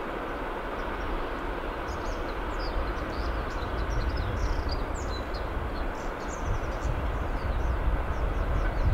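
Small birds chirping over a steady low rumble that grows a little louder toward the end.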